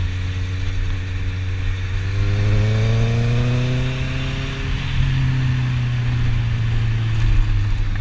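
Honda CB650F's inline-four engine running under way, its pitch rising as the bike accelerates from about two seconds in, then dropping back about five seconds in and holding steady.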